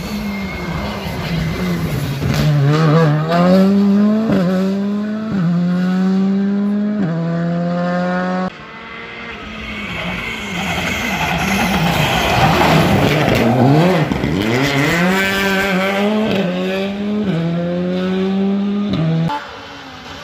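Rally car engines at full throttle, accelerating hard through the gears: the pitch climbs and drops back at each upshift. About eight seconds in the sound breaks off and a second car is heard, rising as it approaches, passing with a rush of noise and again shifting up through the gears.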